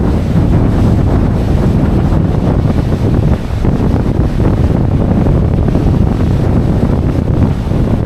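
Wind buffeting the microphone in a loud, low, fluttering rumble, with ocean surf on the beach underneath.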